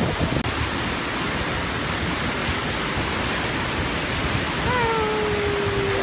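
Steady rush of a tall waterfall pouring straight into churning sea surf. Near the end a person's voice gives one long held call that sinks slightly in pitch.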